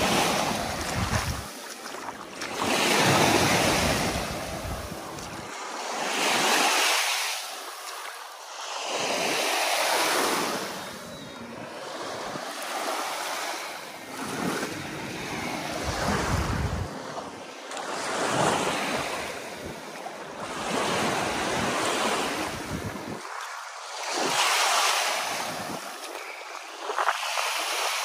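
Small sea waves washing onto the shore, swelling and falling back about every three seconds, with wind now and then buffeting the microphone.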